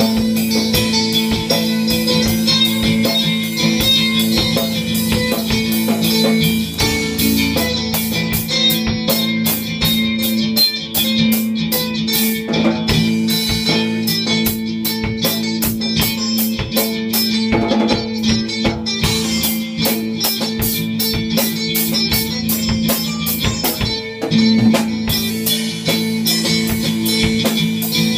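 Rock band playing an instrumental passage: electric guitar over a drum kit keeping a steady beat, with a low note held throughout.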